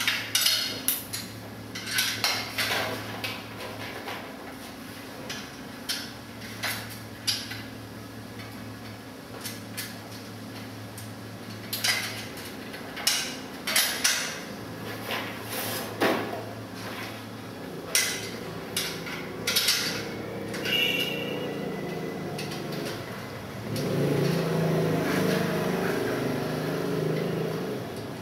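Metal struts of a bicycle rear luggage rack clicking and knocking against each other and the tile floor as the rack is handled and assembled, in scattered sharp clicks over a steady low hum. A louder low murmur comes in near the end.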